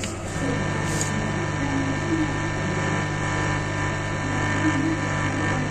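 Small speaker driven by a PAM8403 amplifier giving a steady electrical hum and hiss, the buzz of the laser-to-solar-panel audio link.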